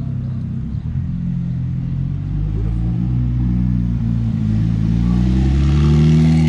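Car engine running, its pitch climbing steadily for about four seconds as it accelerates, then falling sharply near the end.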